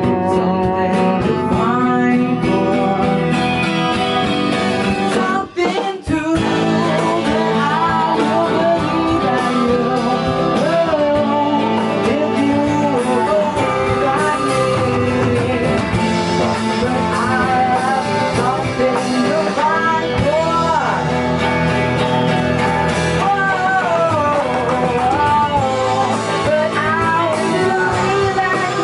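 Music from a small band: a man singing over acoustic guitar, with bowed cello and drums. The music drops out for a moment about five and a half seconds in, then carries on.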